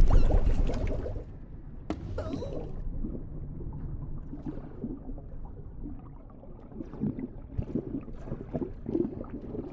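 Underwater sound effects for an animated film: muffled bubbling and gurgling. It follows a loud low rumble that dies away within the first second.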